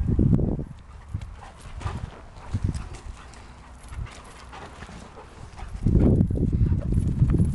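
A dog panting and sniffing close by, loudest in the first moment and again from about six seconds in, with quieter scattered ticks between.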